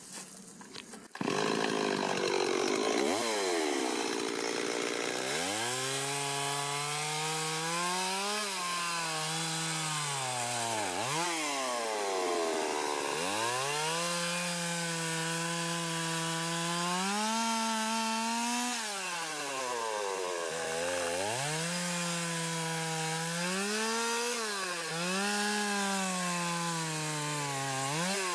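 Petrol chainsaw cutting branches from a tree crown. The engine starts abruptly about a second in, then revs up to full throttle and drops back toward idle several times between cuts.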